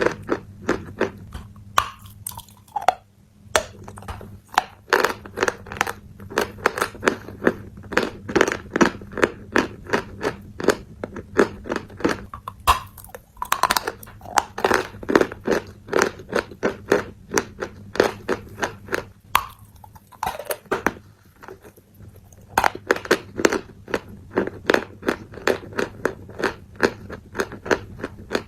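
A person chewing crunchy food close to the microphone: crisp crunches at about two to three a second, with a couple of brief pauses.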